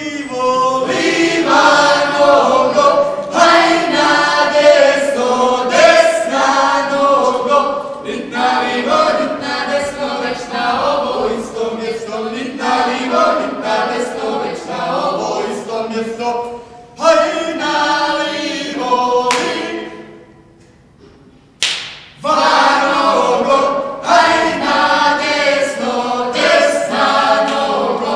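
A group of voices singing together without instruments. Near the end the singing breaks off for about two seconds, a single sharp knock sounds, and the voices start again.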